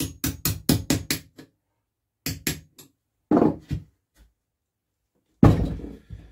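Hammer tapping a spanner to shift a tight magneto bolt on an old BSA engine: a quick run of about seven sharp metallic taps, two more a moment later, then a duller knock and a heavier thump near the end.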